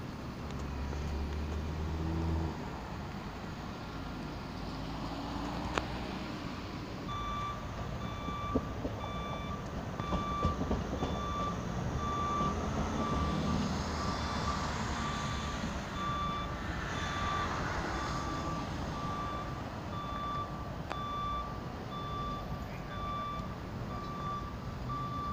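An electronic reversing-type warning beeper, one high beep repeated about three times every two seconds, starts about seven seconds in and keeps going. Underneath is the steady running noise of a tram moving on the depot tracks, swelling for a few seconds in the middle, with a few sharp clicks.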